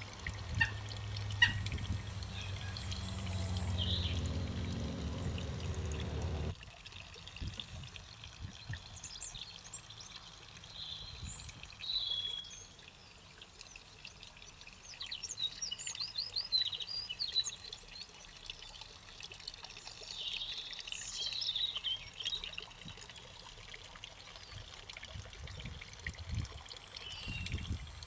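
Garden birds singing and chirping, with a steady low engine-like hum underneath for the first six seconds or so that cuts off suddenly.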